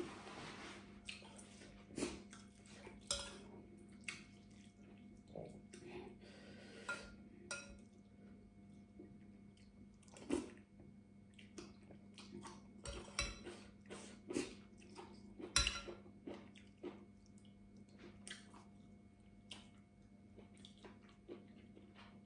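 Quiet eating sounds: a metal spoon clinking and scraping against a glass bowl and metal tray, with chewing, as scattered short clicks and knocks over a faint steady hum.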